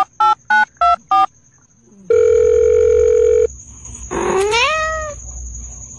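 Telephone keypad tones beep rapidly several times, then a long steady beep sounds for over a second, and then a cat gives a single meow that rises and falls in pitch.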